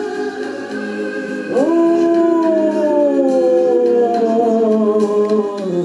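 A dog howling along to the refrain of a song playing in the room. One long howl rises sharply about a second and a half in, then slides slowly down in pitch until near the end.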